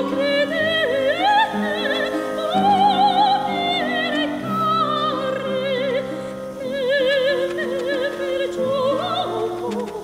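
A woman singing a slow, old-style song with wide vibrato over instrumental accompaniment that holds lower sustained notes beneath the voice.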